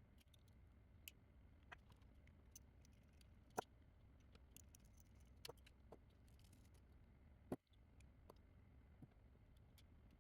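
Near silence with scattered faint clicks and taps, two sharper clicks about a third of the way in and about three quarters of the way in.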